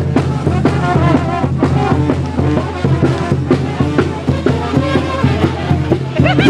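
Music with drums and brass and a steady beat.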